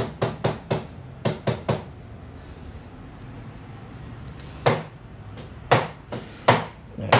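Short knocks and clicks: a quick run of about seven in the first two seconds, a pause, then four more spaced through the last few seconds.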